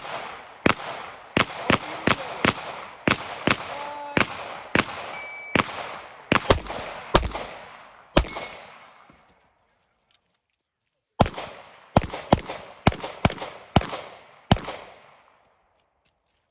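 Pistol shots fired in fast strings, as in an IPSC course of fire: about eighteen shots in the first eight seconds, often in quick pairs, each with a short echoing tail. Then there is a break of about three seconds with no shots, and a second string of about ten shots.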